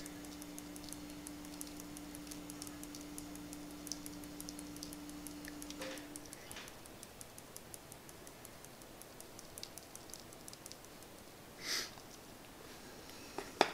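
Dirt grains being sprinkled from a small spoon onto a glued strip of a model layout's base, giving faint, irregular light ticking. A low steady hum stops about six seconds in, and there is a short soft rustle near the end.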